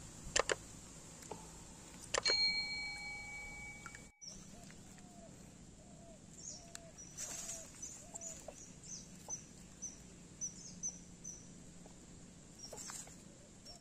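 A few sharp clicks and a held chime from a subscribe-button animation. After a cut, birds call: a short low call repeated about twice a second for a few seconds, then high chirps at a similar rate.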